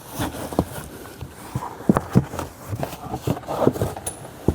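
Irregular clicks and knocks of plastic interior trim panels being handled and pulled back, with some rustling between them; the sharpest knocks come about two seconds in and just before the end.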